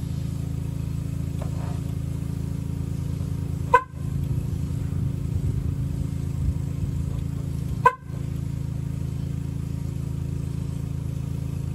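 2008 GMC Sierra's horn sounding without a break, held down. Two short clicks break it about 4 and 8 seconds in.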